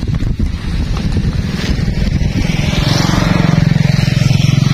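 Small engine running with a rapid, even putter, growing louder from about halfway through.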